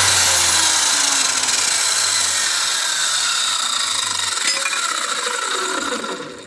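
Cut-off saw winding down after a cut: the spinning blade and motor whine slide steadily lower in pitch and fade, then the sound cuts off abruptly at the end.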